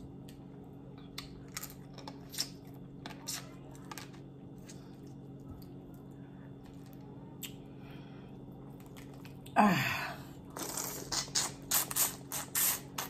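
Mouth and hand sounds of eating boiled crawfish: scattered faint clicks of shells being handled and peeled. About ten seconds in comes a loud slurp that falls in pitch, then a quick run of crackling and smacking as the meat is eaten, over a steady low hum.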